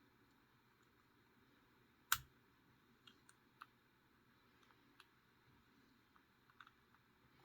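Disc detainer padlock being picked with a disc detainer pick: one sharp metallic click about two seconds in, then several faint ticks as the discs are turned. Each click is typical of a disc returning to its zero cut.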